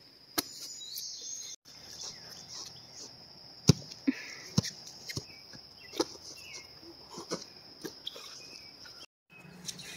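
Insects droning steadily at a high pitch, with scattered sharp knocks, the loudest a little under four and about four and a half seconds in. The drone cuts out briefly twice.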